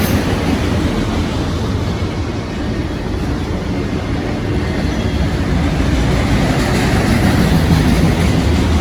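Long freight train of empty auto rack cars rolling past steadily, steel wheels running on the rails.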